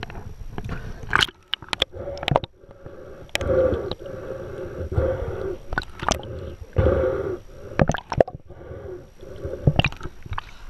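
Seawater sloshing and gurgling around the camera as it moves at the surface and under it, with a series of sharp splashes and knocks.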